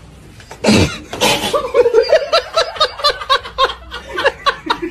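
A person laughing, a long run of short, rhythmic laughs. It is preceded by a brief falling swoosh under a second in.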